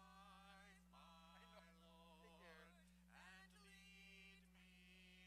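Faint singing with held, wavering notes, over a steady electrical hum.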